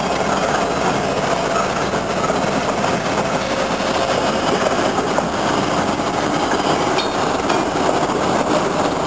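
Diesel freight locomotives rolling past, a steady rush of engine and rail noise with a few faint clicks about seven seconds in.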